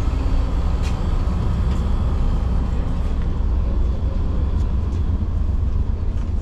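Steady low rumble of a VIA Rail passenger train, with a few faint clicks over it.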